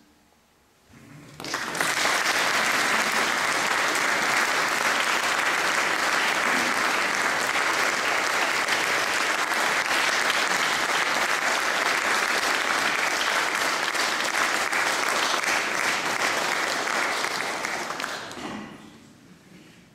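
Audience applauding at the end of an a cappella choral piece: the clapping starts about a second in, holds steady, and dies away near the end.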